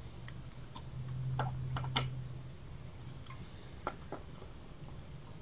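Scattered light clicks and taps of a screwdriver and fingers on the plastic body of an Autotrol 255 water-softener control valve while its cover screws are snugged down, over a low steady hum.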